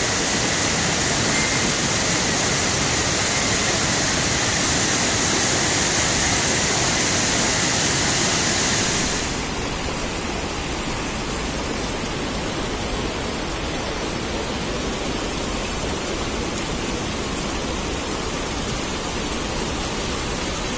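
Rushing muddy floodwater pouring across a road, a steady loud rush of water. About nine seconds in it changes to a slightly quieter, duller rush as the footage switches to another stretch of the flood.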